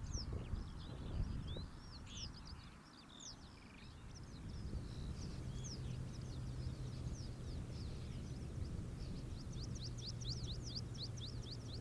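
Small birds chirping and twittering over a low rumble. Near the end the chirps come in a quick run of several short falling notes a second.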